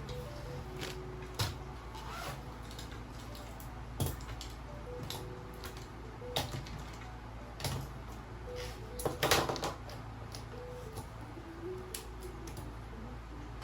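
Small objects handled on a desk: scattered light clicks and taps, with a quick cluster of rattling clicks about nine seconds in, over a low steady hum.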